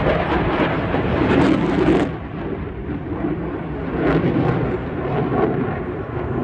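Military fast jet's engines at high power during a display pass: a loud, rumbling jet roar that drops somewhat about two seconds in, then swells again around four seconds.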